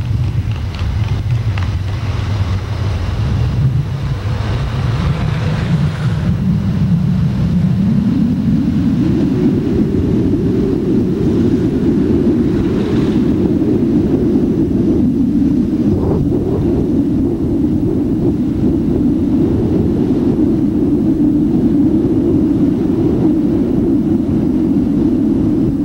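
Truck driving along a road, a steady rumble of engine and road noise heard from the vehicle; the rumble rises in pitch about eight seconds in, then holds steady.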